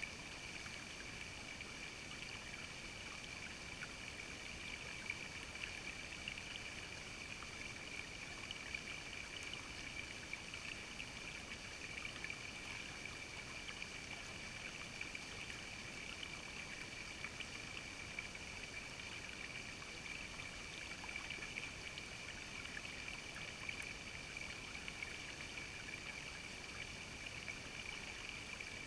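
Shallow creek water running over rocks: a steady trickling babble with many small splashy ticks.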